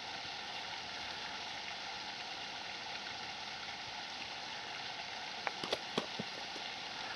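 Steady hiss of outdoor background noise, with a few short, light clicks about five and a half to six seconds in.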